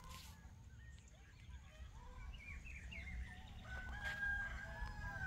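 Birds calling: a scatter of short chirps and calls, then one long held call starting near the end, over a steady low rumble.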